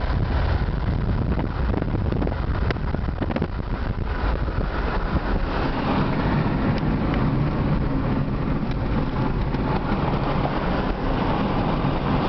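Steady cabin noise of a car driving at highway speed: tyre and wind rush with a low engine drone underneath.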